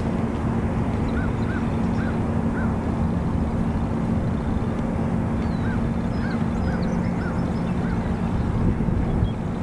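A bird calling in two runs of short, repeated arched notes, over a steady rushing background with a constant low hum.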